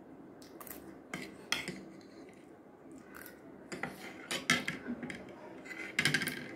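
Metal spoon and fork scraping and clinking against a plate, in short clusters of clicks, as the last of the noodles are gathered up.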